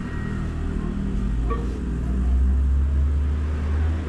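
Low rumble of a motor vehicle engine, growing louder about halfway through.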